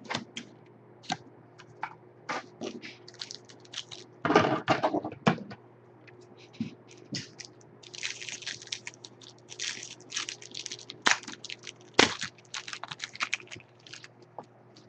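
A trading-card pack being torn open and the cards handled: irregular crinkles, crackles and clicks of the wrapper and cards, denser about eight to eleven seconds in.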